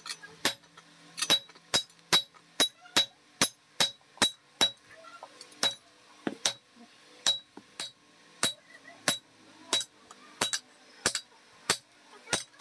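Hand hammer striking a red-hot steel cleaver blade on a flat steel anvil block: a steady run of sharp, ringing metal blows, about two to three a second with a few short pauses, as the hot blade is forged to shape.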